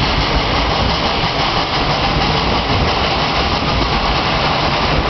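Steady rumble and rattle of a ride aboard a narrow-gauge steam train, the passenger car running over lumpy track with the steam locomotive working ahead.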